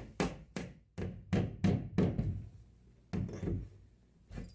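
Hammer tapping a small wire brad nail into drywall to probe for the wood stud behind it: a run of light, sharp taps about three a second that stops about two seconds in, followed by a few softer knocks.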